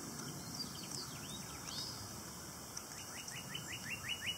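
A songbird singing: runs of quick upward-sweeping chirps, about six a second, loudest in a run near the end, with a few longer curved notes earlier, over a steady faint high hiss.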